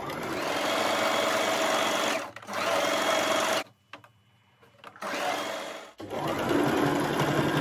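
Electric sewing machine stitching a seam in stretchy jersey knit, running in spurts: a brief break after about two seconds, a stop of about a second in the middle, then running steadily again.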